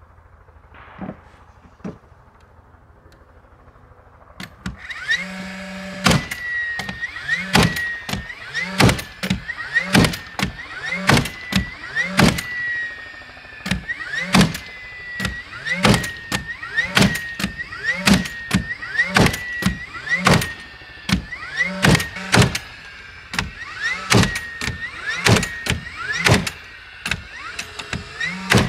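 Battery-powered nail gun driving nails into the plywood truss gussets in quick succession, about two shots a second. Its motor whines steadily between shots. The nailing starts about five seconds in, after a quiet stretch with one small knock.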